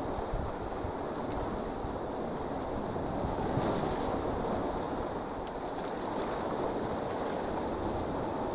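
Sea surf washing over shore rocks: a steady rush of water, swelling a little louder about three and a half seconds in.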